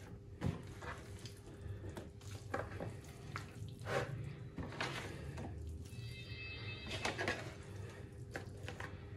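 Wet raw mutton pieces being scooped by hand and dropped into a plastic bowl, making irregular soft slaps and squelches. A faint steady hum lies under it.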